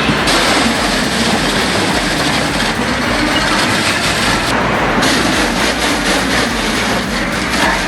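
Heavy machinery crushing and grinding scrap metal: a loud, dense, continuous grinding clatter. It changes abruptly twice, about a third of a second in and again around five seconds in.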